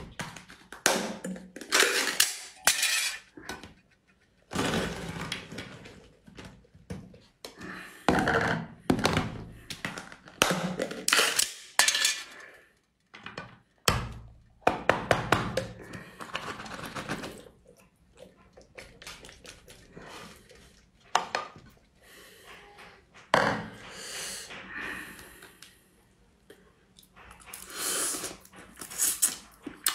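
Small canned sea crabs being eaten: repeated crunching and cracking of the shells in irregular bursts, mixed with clinks of dishes and utensils.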